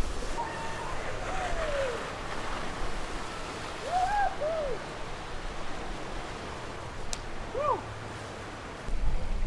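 Steady rush of running water at a water park, with a few short rising-and-falling calls from distant voices at the start, around the middle, and near the end.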